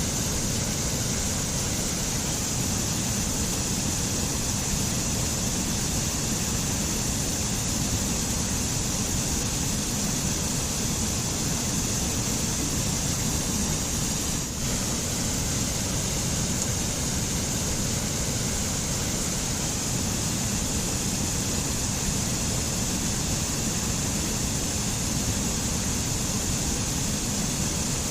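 White water of a mountain stream rushing over rocks, a steady, unbroken rush.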